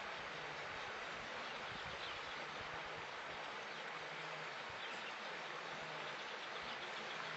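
Steady outdoor ambience: an even hiss with a faint low hum underneath and no distinct events.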